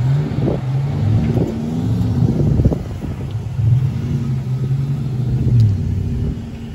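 Four-wheel-drive vehicle engine working hard under load while towing a boat trailer up soft beach sand. Its pitch rises near the start, holds steady through the middle, and drops off about five and a half seconds in as the throttle comes back.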